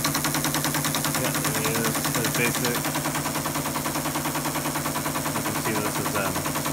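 ASR-33 Teletype paper tape reader chattering through punched tape at a steady pace, about ten clicks a second, over the Teletype's motor hum: a BASIC tape being read into an Altair 8800.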